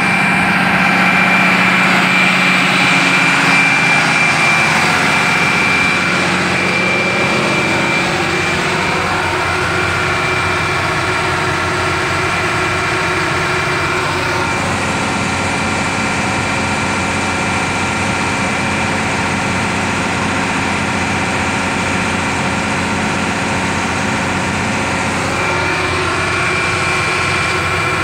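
John Deere tractor's diesel engine running steadily, with a thin high whine over it that comes and goes. The engine note shifts a little about halfway through.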